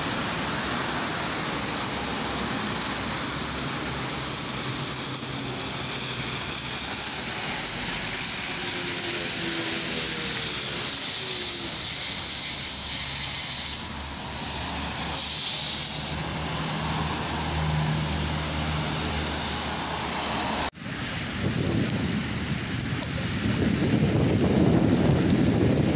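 LiAZ-5280 trolleybus pulling in at a stop amid street traffic, with a faint falling whine as it slows, a short hiss of compressed air about halfway through, and a steady low hum while it stands. After a cut near the end, low wind rumble on the microphone over traffic.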